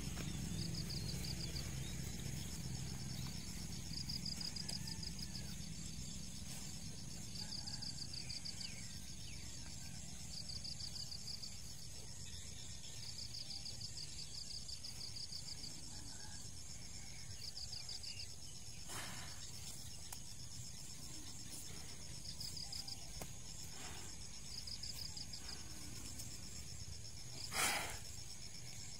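Insects chirping in short high pulsed trills, repeating every second or two over a low outdoor rumble. A brief loud burst of noise stands out near the end.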